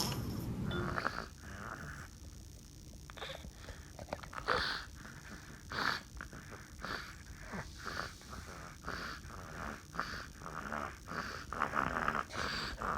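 A sleeping baby snoring: short, irregular snores, a little more than one a second.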